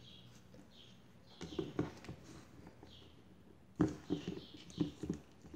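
Soft clicks and rustles of hands handling motor wires and fitting heat-shrink tubing onto them. The sounds come in short clusters, a few about a second and a half in and more near the end.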